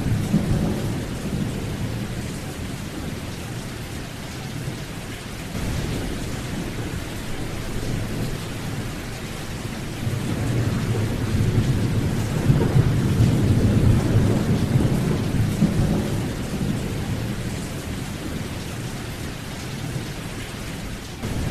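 Steady rain with rolling thunder: the low rumble swells at the start and again for several seconds in the middle.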